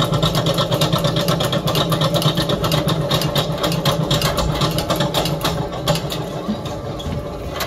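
An engine running steadily close by, with a steady low hum and a fast rattling clatter.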